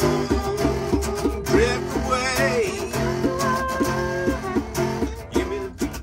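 Live acoustic guitar being strummed and picked, with a hand drum beating low and steady, and a voice singing a wavering held note in the middle.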